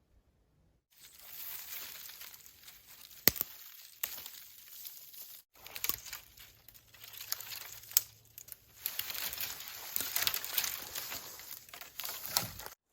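Rustling, crackling noise with a few sharp snaps, which cuts off abruptly about halfway through and again near the end.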